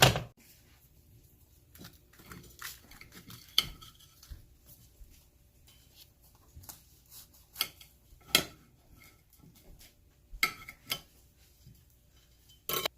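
Kitchen utensils and dishes clinking and knocking now and then: about half a dozen short, sharp clatters spread across a quiet background, the loudest two near the end.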